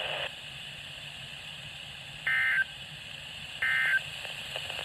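NOAA Weather Radio SAME end-of-message signal: two short bursts of buzzy digital data tones about 1.4 seconds apart over faint radio hiss, marking the end of the weekly test transmission.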